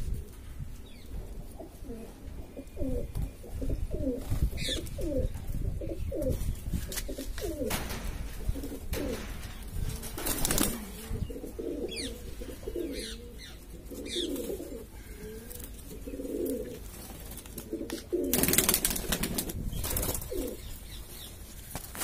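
Domestic high-flying pigeons cooing, many short low coos following one another, with a few brief noisy sounds, the loudest lasting a second or two about eighteen seconds in.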